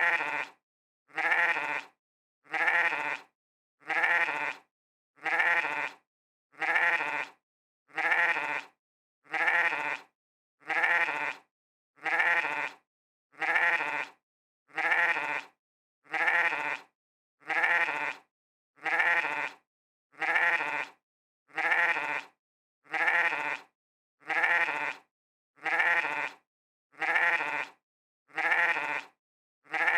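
Sheep bleating 'meh', the same short bleat repeated over and over about every second and a third, with silence between each.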